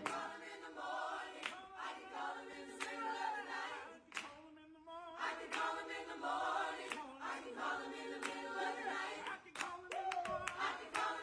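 Soft background music of choral singing.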